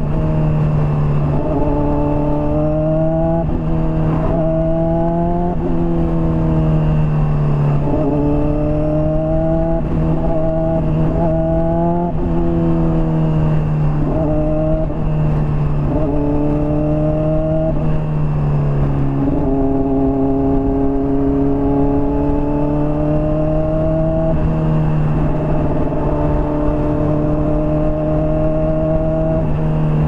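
Honda CBR600RR inline-four running through a Hotbodies Stinger slip-on exhaust while the bike is ridden. The engine note climbs and drops sharply again and again, about once a second, for the first half. It then makes a longer, slower climb and holds fairly steady near the end.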